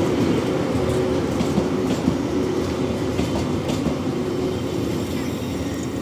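LHB passenger coaches of a departing train rolling past at low speed, their wheels giving a steady rumble with scattered clicks over the rail joints.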